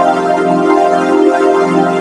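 Synthesized sawtooth-wave chord held steadily under a flanger effect, its tone swelling and fading in a slow swirl about twice a second.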